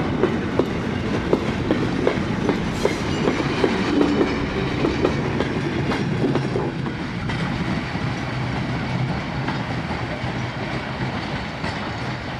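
Goods wagons of a heritage freight train rolling past close by, their wheels clacking over the rail joints in a quick irregular rhythm. The clacking thins out after about seven seconds and the rumble slowly fades as the last wagons pull away.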